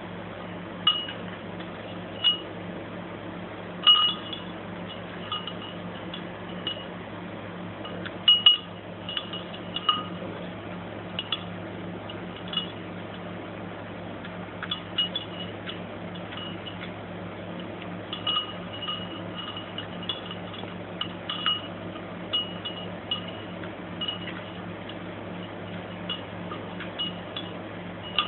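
A dog eating dry kibble from a small stoneware bowl, making irregular ringing clinks against the bowl, a few of them louder, over a steady low hum.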